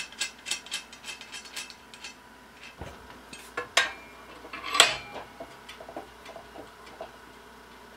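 Steel threaded rod being handled and clamped in a cast-iron bench vise: a quick run of light metal clinks, about five a second, then a few sharp metal clanks, the loudest just before five seconds in, followed by faint ticks.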